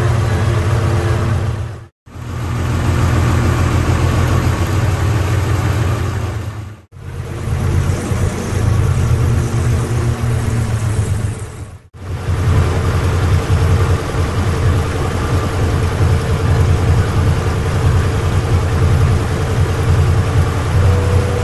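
Passenger river boat's engine running steadily with a low, pulsing rumble, over a hiss of water and wind along the hull. The sound breaks off briefly three times.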